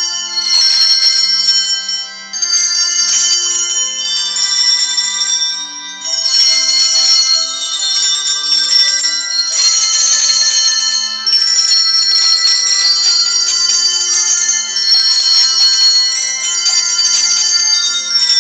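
Handbells ringing a tune, several bells struck together in chords with each note ringing on, with short breaks between phrases.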